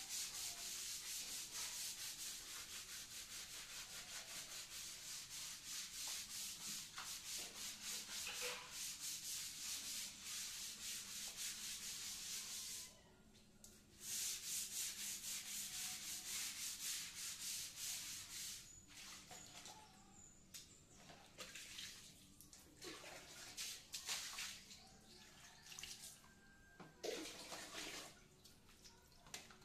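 Hand brush scrubbing a wet tiled bathroom floor in quick, even back-and-forth strokes, stopping briefly about 13 seconds in, then starting again. In the last ten seconds the strokes thin out into scattered scrapes, knocks and splashes.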